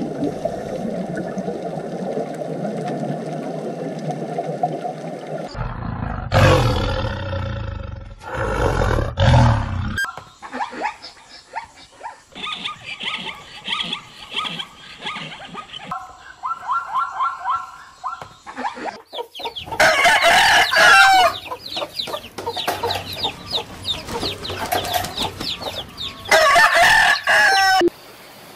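Chickens: roosters crowing several times, with shorter calls from the flock in between. A steady low noise fills the first five seconds or so, before the calls begin.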